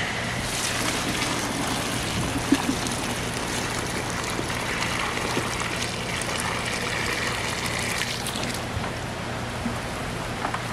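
Cloudy maceration water poured in a steady stream from a plastic five-gallon bucket, splashing into a hole in the ground as the bucket is emptied.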